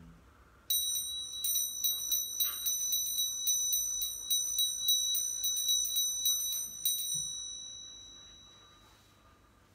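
Altar bells shaken in quick, uneven strikes, several a second, starting suddenly and then ringing out and fading near the end: the bell signal for the elevation of the chalice at the consecration.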